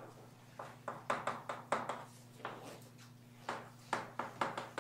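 Chalk writing on a blackboard: an irregular string of sharp taps and short scratchy strokes as a formula is written, over a faint steady electrical hum.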